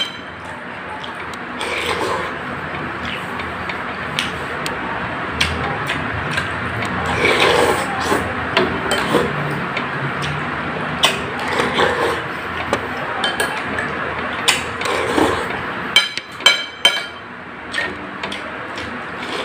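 A metal spoon scraping and clinking against a ceramic soup bowl while noodle soup is eaten, with softer eating sounds between, over a steady background hiss. Several quick clinks come close together near the end.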